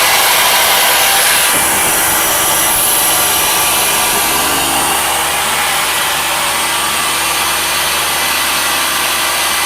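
Tree Journeyman 250 CNC milling machine running while it mills an aluminum wheel, a loud, steady, noisy whir. The sound changes slightly about a second and a half in.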